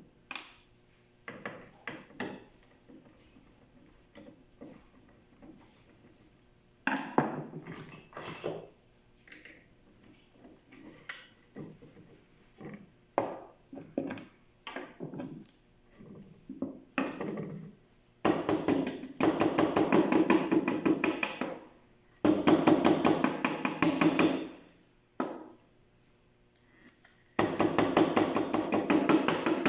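Hard plastic and metal parts of a photocopier's drum unit being handled: scattered clicks and knocks, then three bursts of fast rattling scraping a few seconds long, the loudest about two-thirds of the way in.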